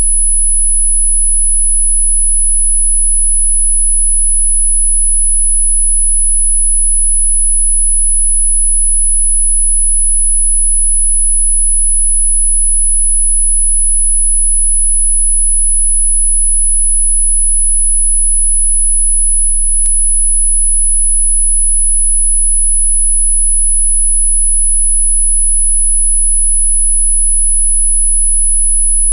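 A steady, high-pitched electronically generated sine tone of about 10 kHz, held unchanging, with a faint low hum beneath it and one faint click about twenty seconds in.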